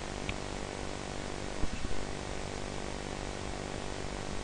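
Steady recording hiss with a low electrical hum, with a faint click just after the start and a brief soft bump a little under two seconds in.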